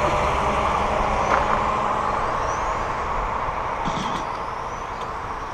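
Electric 1/10-scale VTA-class RC touring cars racing on asphalt: the high whine of their motors rises in pitch again and again as the cars accelerate, over a steady rushing noise.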